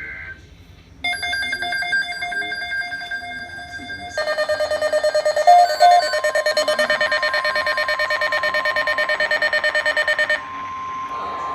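Electronic emergency alert alarm beeping in a rapid pulsing multi-tone, getting louder about four seconds in. Near the end it gives way to a single steady tone, the NOAA Weather Radio 1050 Hz attention signal that comes before the voice message.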